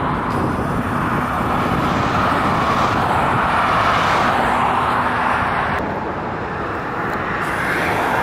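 Steady roar of road noise from cars moving on a highway.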